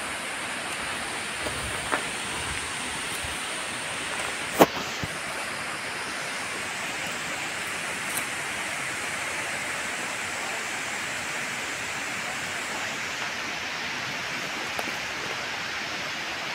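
Waterfall rushing, a steady even hiss of falling water. A sharp click stands out about four and a half seconds in, with a fainter one shortly before.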